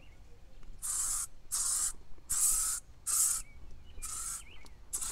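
Aerosol can of OFF! insect repellent being sprayed in about six short bursts, each lasting a quarter to half a second, with brief pauses between them.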